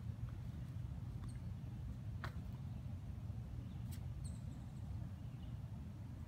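A raccoon rummaging through plastic garbage, with a sharp click or crinkle about two seconds in and another about four seconds in, over a steady low rumble. A few faint, short high chirps come in between.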